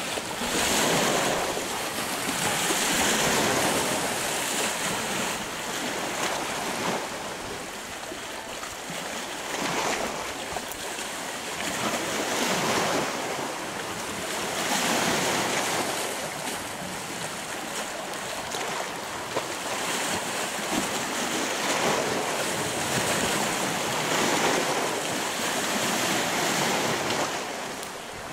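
Lake waves washing against a boulder-armoured shoreline, the wash swelling and falling back every two to three seconds, with wind blowing.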